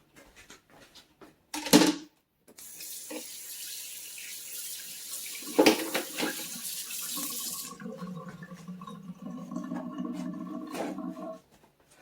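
A knock, then a kitchen sink faucet running for about nine seconds as hands are rinsed under it, shut off near the end.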